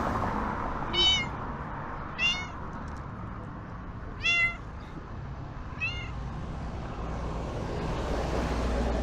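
A ginger stray cat meowing loudly, four short meows one to two seconds apart, over a low background rumble that grows toward the end.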